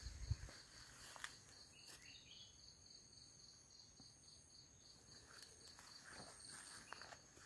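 Near silence with a faint insect trill: a high pulsed chirp repeating about four times a second, steady throughout. A couple of soft low bumps just at the start.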